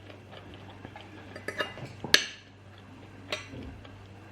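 Cutlery clinking against dishes during a meal: a few sharp clinks, the loudest about two seconds in.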